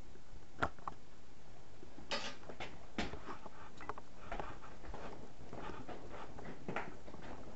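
Scattered light clicks and rustles of handling as a roll of electrical tape is picked up and carried, over a steady faint hiss.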